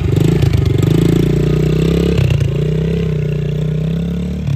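Yamaha TT-R110 dirt bike's small single-cylinder four-stroke engine running close by under light throttle as it rides off, with a brief dip in engine pitch a little over two seconds in before it picks up again.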